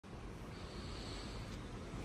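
Quiet background: a faint steady hiss and low rumble, with a faint thin high whine for about a second.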